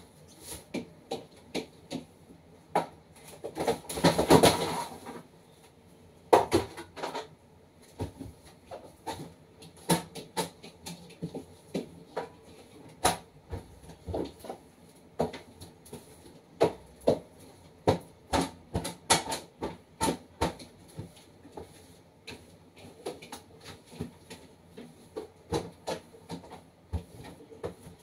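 Food jars, packets and containers knocking and clicking as they are handled, wiped and set back on refrigerator shelves, making an irregular run of light knocks. There is a rustling sound about a second long, about four seconds in.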